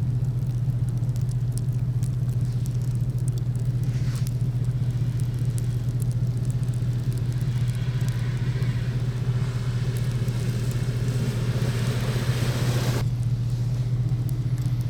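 Steady low drone of a vehicle driving, with scattered light ticks. A louder rushing noise builds from about eight seconds in and cuts off suddenly near thirteen seconds.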